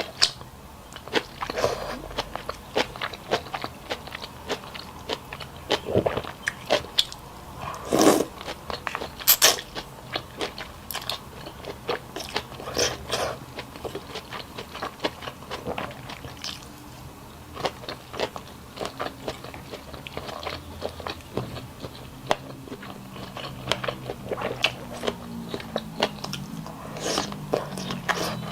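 Close-up eating sounds: irregular biting, crunching and chewing, with a few louder crunches about eight and nine and a half seconds in.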